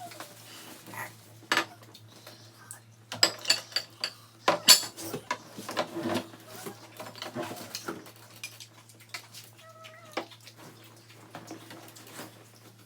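Cutlery clinking and scraping against dishes during a meal, in a run of irregular sharp clicks and knocks that is busiest a few seconds in.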